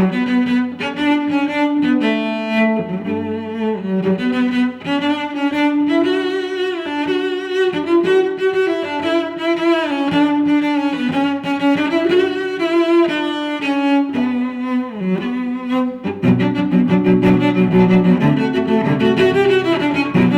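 Background music with a flowing melody. The arrangement turns fuller and lower about three-quarters of the way through.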